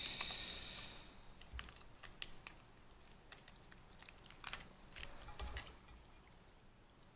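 Small clicks and cracks of crab and lobster shells being handled and picked apart while eating, with a brief hiss in the first second.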